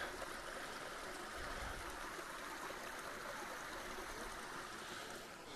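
Steady, fairly faint rushing of a small mountain stream.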